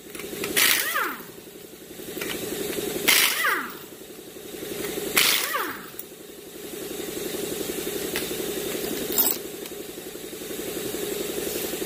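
Pneumatic impact wrench spinning off the 19 mm lug nuts of a front wheel: three short rattling bursts, each winding down in pitch as the trigger is let go, over a steady machine hum, with a sharp click near the end.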